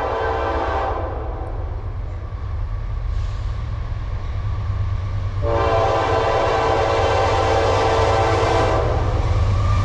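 Diesel locomotive air horn of an approaching Norfolk Southern AC44C6M, heard from a distance: a blast trails off about a second in, a fainter one sounds a little after, then a long, louder blast holds from about halfway until near the end, over a steady low rumble.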